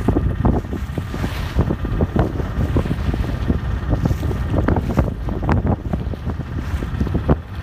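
Strong wind buffeting the microphone in constant, irregular gusts: a loud, uneven low rumble.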